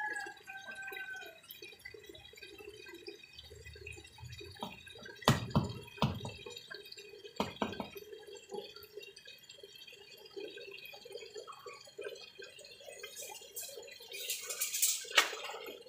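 Water dripping and trickling into a concrete fish pond, with a few sharp drips plopping into the water about five to eight seconds in. A brief splash near the end.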